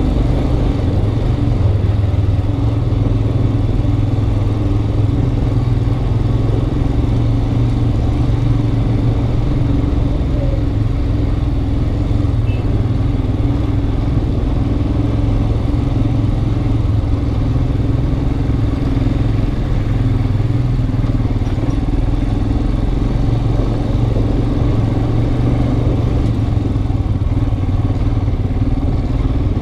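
Motorcycle engine running steadily at low speed on rough gravel, heard from a helmet-mounted camera.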